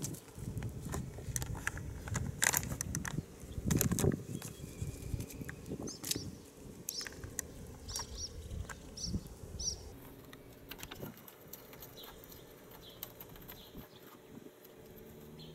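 Rustling and knocking close to the microphone, loudest in the first few seconds, with a small bird chirping about once a second in the middle.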